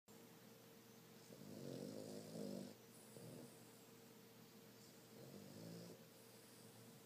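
Boston Terrier snoring in its sleep: a long snore a little over a second in, a short one just after, and another about five seconds in.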